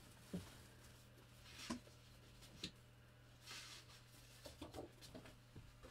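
Near silence with faint rustling and a few light taps: paper and card being handled while a scrap of black card is fetched.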